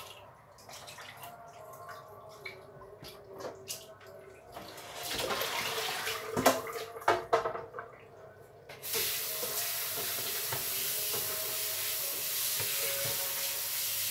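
Kitchen tap running into a stainless steel sink and metal pot. First there is a short spell of splashing with a few sharp metal clinks, then from about nine seconds in the tap runs steadily.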